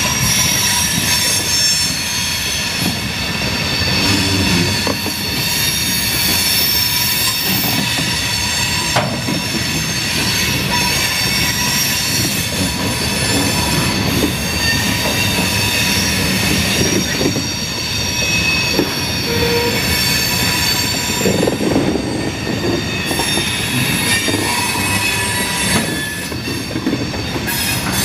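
Freight train of flatcars loaded with steel coils rolling past as it rounds a curve, its wheels squealing steadily in several high tones over the low rumble of the cars.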